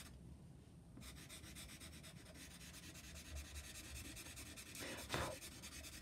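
Faint scratching of a Stabilo CarbOthello chalk-pastel pencil on sketch paper, in many quick short strokes as it lays down fur.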